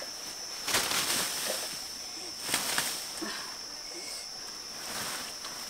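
Steady high-pitched drone of insects, with a couple of sudden rustling knocks as a long wooden stick is jabbed into the undergrowth, about a second in and again about two and a half seconds in.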